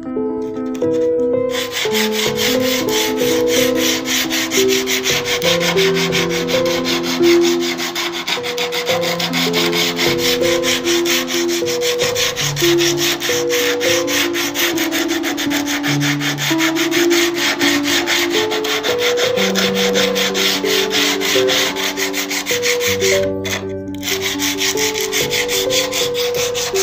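Wood being sanded with rapid back-and-forth strokes over a tray's flat surface, a dense scratching that starts about two seconds in and breaks off briefly near the end. An instrumental melody of separate notes plays underneath.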